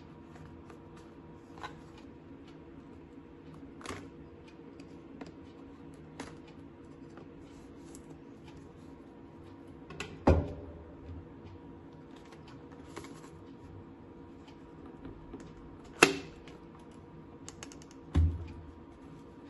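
Hands handling a clear plastic sleeve and cardboard phone box, making scattered light clicks and taps. There are three louder knocks: about ten seconds in, about sixteen seconds in, and once more near the end. A faint steady hum runs underneath.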